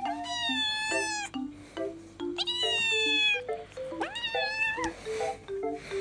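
Munchkin kitten meowing three times, each cry about a second long and the last sliding up sharply at its start, as it protests having its claws clipped. Background music with short marimba-like notes plays underneath.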